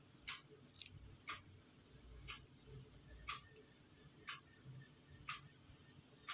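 Near silence with faint, even ticks about once a second.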